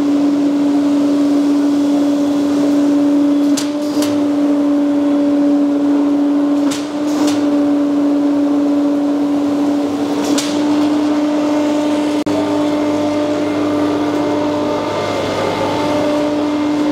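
Pillow fiber-filling machine's electric centrifugal blower running steadily with a strong hum and a rush of air, blowing fiber through its hose into a pillow cover. A few sharp ticks sound over it.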